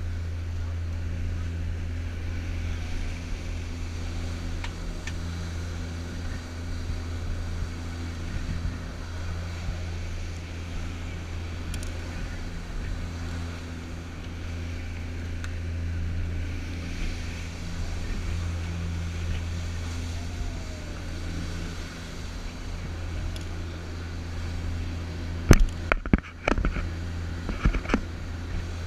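Tour boat's engines running steadily at cruising speed: a constant low drone with the rushing wash of the wake and wind. A few sharp knocks and bumps come near the end.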